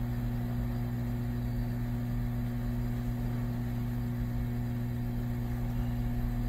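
Hot air rework station blowing on a microcontroller to keep its solder molten: a steady hum with an even hiss of air.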